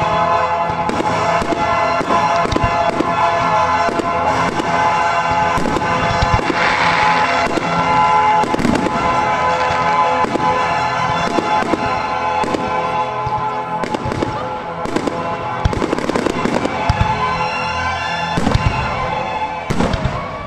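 Fireworks going off: a quick, irregular run of sharp bangs from bursting shells, over background music with long held tones.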